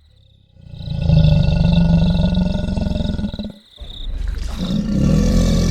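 Crocodile giving two long, low, rumbling growls with a brief break between them, about three and a half seconds in.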